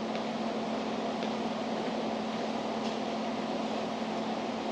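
Steady hum of an indoor ventilation or air-conditioning fan, with a low even tone underneath and a few faint clicks.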